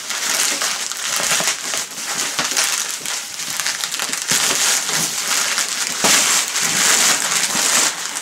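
Plastic mailing bag being torn open and handled, a continuous crinkling and crackling of plastic as the bubble-wrapped parcel inside is pulled out.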